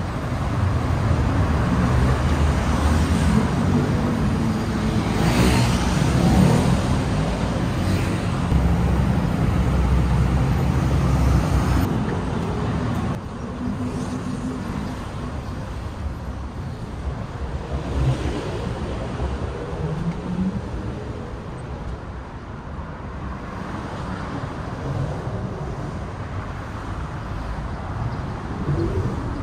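Road traffic, a steady rumble of passing cars and motorbikes, loud for the first dozen seconds and then dropping to a lower level, with a brief louder swell about five seconds in.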